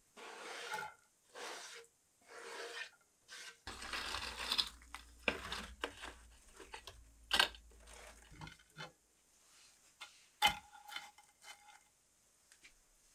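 Cast-iron frying pan scraped across the oven floor of a wood-fired oven and pushed toward the coals with a long-handled pan grip. A few rough scraping strokes come first, then scattered clicks and knocks, and one sharp metal clank about ten seconds in rings briefly.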